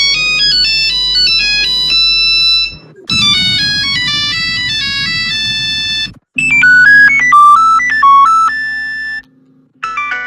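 Nokia ringtones playing one after another as short electronic melodies of bright, stepping notes. A new version starts after brief breaks about three and six seconds in, the third lower and louder than the first two. After a short silence near the end a fourth begins.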